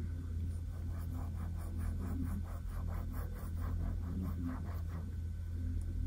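Paintbrush loaded with fountain pen ink being stroked and dabbed across a paper swatch page: a quick run of soft brushing scratches, about four a second, stopping near the end.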